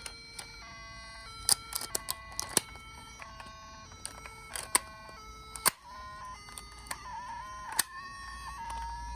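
Electronic sound chip of a toy emergency vehicle playing a tune of short stepped beeping tones, with several sharp clicks. Near the end the tone wavers, then holds steady.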